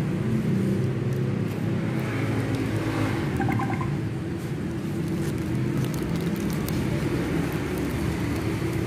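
A steady low rumble, with scattered light crackles of paper and cardboard wrapping being handled.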